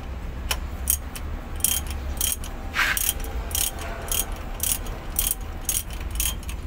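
Socket ratchet wrench clicking as it is swung back and forth on a bolt at a truck transmission's output flange, a sharp pawl click about every half second, over a steady low hum.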